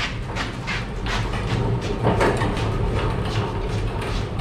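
Wheel dollies under a 1980 Chevrolet C10 pickup rolling across a concrete floor as the truck is pushed around by hand: a steady low rolling noise with frequent clicks and rattles.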